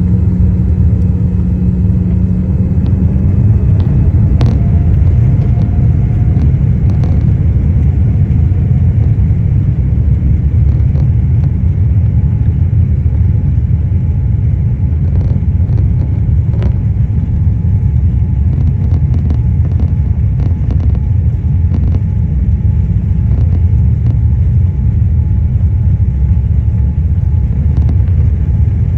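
Steady, loud, low rumble of a Boeing 777's engines and airflow heard from inside the cabin. A steady low hum fades out about three seconds in, and a faint whine rises in pitch over the first few seconds.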